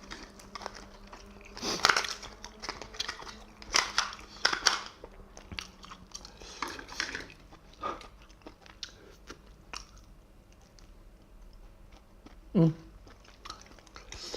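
Close-miked chewing of big steamed scallops in a thick chilli sauce: irregular wet mouth noises and clicks, heaviest about two, four and seven seconds in. Near the end comes a short hummed "mm", the loudest sound.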